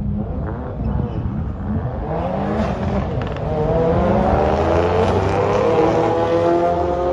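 2022 Subaru WRX and another car launching off the drag-strip start line side by side and accelerating hard, engine pitch climbing steadily and getting louder from about three seconds in. The WRX launches without launch control.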